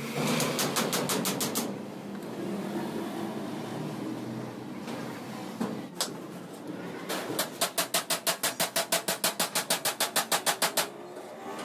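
Rapid, evenly spaced mechanical strikes, about seven a second, from a workshop machine or tool. They come in a short run at the start and a longer run from about seven seconds in, with a steady noisy whirr between them and a single knock near the middle.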